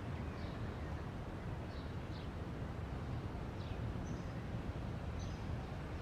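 Outdoor ambience: a steady low background rumble with faint, brief bird chirps every second or so.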